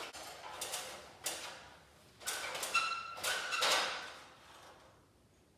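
Handling noise from parts of a screw-drive garage door opener being worked on: four short scraping, clunking sounds, the third with a brief metallic ring.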